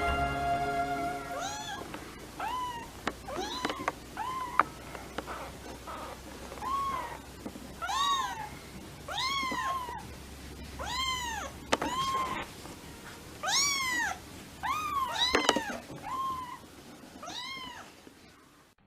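A kitten meowing over and over, short high calls that rise and fall, about one a second, growing fainter near the end.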